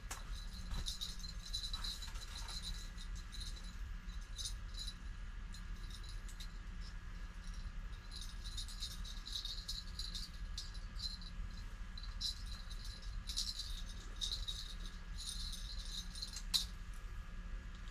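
A small bell clipped to an ice-fishing rod jingling in irregular bursts, over the steady low hum of a tent heater and fan.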